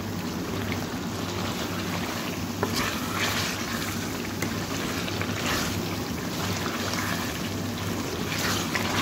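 Mutton pieces frying in oil in a metal karahi, sizzling steadily, with a wooden spatula scraping and stirring through them; a few louder scrapes stand out, about three seconds in, around the middle and near the end. A steady low hum runs underneath.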